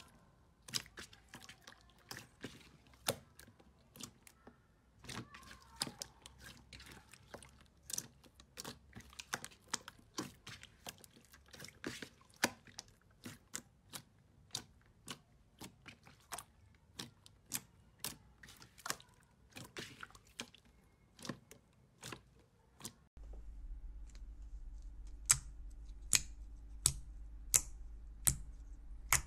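Hands pressing and kneading clear slime, giving a run of sharp, wet clicks and pops, a few a second. About 23 seconds in, the sound changes to fingers pressing clear slime in a tub, with louder, more widely spaced pops over a low hum.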